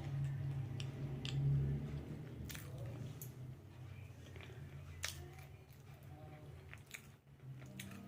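A person chewing and eating, with scattered short clicks and mouth sounds over a low steady hum.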